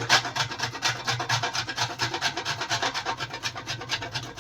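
Whole nutmeg grated on a small grater: quick, even rasping strokes, about six a second.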